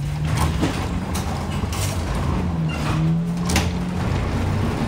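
Old tram's chain-driven sliding door opening: the door motor and chain drive give a steady low hum, with several sharp clanks and knocks from the mechanism.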